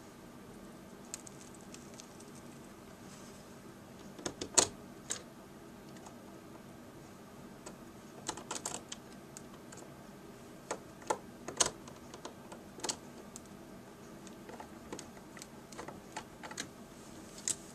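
Scattered light clicks and taps of small screws and a screwdriver against the hard plastic frame of a laptop screen during reassembly, coming in short irregular clusters with the sharpest click about four and a half seconds in.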